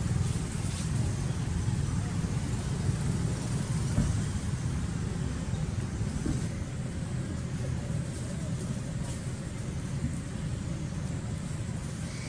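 Steady low rumble of background noise, with no distinct animal calls standing out.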